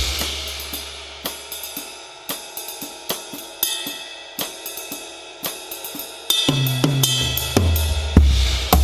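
Drum kit with a Ludwig Black Magic snare and a calfskin snare head. A cymbal crash and drum hit die away at the start. Then comes a sparse pattern of light cymbal and hi-hat strokes, and from about two-thirds of the way in, toms and bass drum join again in a fuller groove.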